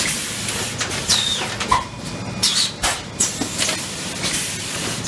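Juneng PET bottle blow moulding machine running: repeated hisses of compressed air and sharp clicks and clacks from its pneumatics, over a steady machine noise, with a few short falling whistles.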